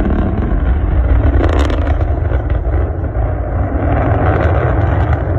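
Loud, steady deep rumble of a rocket engine's roar or an explosion, with a faint crackle about a second and a half in.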